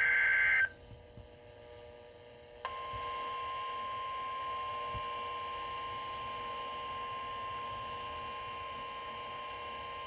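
The tail of an Emergency Alert System SAME data burst, a harsh digital screech that cuts off within the first second. About two seconds of faint radio hiss and hum follow, then a steady single-pitch alert tone near 1 kHz starts sharply and holds unbroken: the NOAA Weather Radio 1050 Hz warning alarm tone that comes before a spoken warning.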